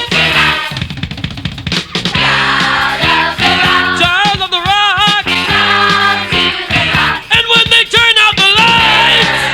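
Rock song between vocal lines: a drum fill in the first two seconds, then the full band playing with a wavering lead melody.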